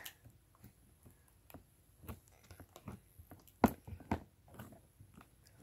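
Fingertips pressing into thick slime, which gives off a string of small wet clicks and pops, the two loudest a little past halfway.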